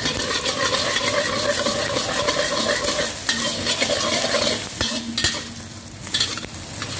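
Metal wok spatula scraping and stirring eggs across a stainless steel wok while they sizzle in hot oil, being scrambled to half-done. The scraping eases off briefly a little after five seconds, then resumes.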